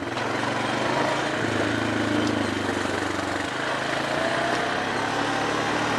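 Quad (ATV) engine running steadily while being ridden, a droning hum over a noisy hiss, its pitch rising slightly about four seconds in.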